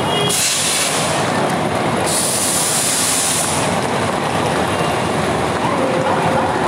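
Train on the track beside a station platform, a loud steady rumble of locomotive and wagons, with two stretches of high hissing in the first few seconds.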